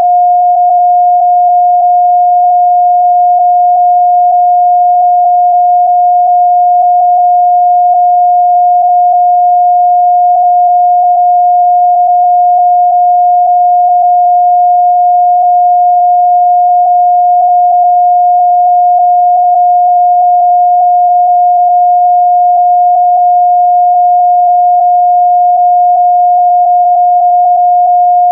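A single steady electronic sine tone held loud and unbroken, then cutting off suddenly at the end: the attention tone of a mock Emergency Alert System broadcast.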